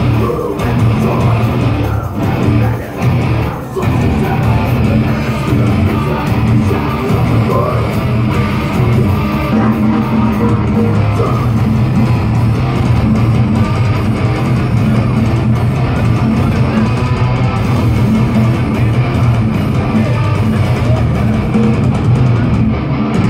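Live rock band playing loudly, with electric guitars and a drum kit. There are a few short, abrupt stops in the first few seconds, then continuous playing.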